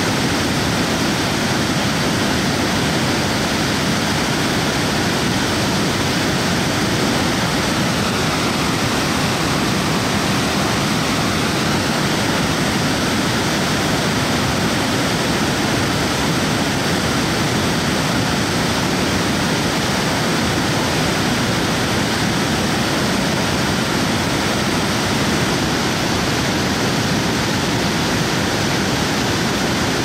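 Kiutaköngäs rapids and waterfall on the Oulanka River: fast water rushing, loud and steady with no let-up.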